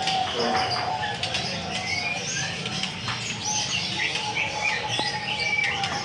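Many caged birds chirping and whistling at once: a dense chorus of short, overlapping calls.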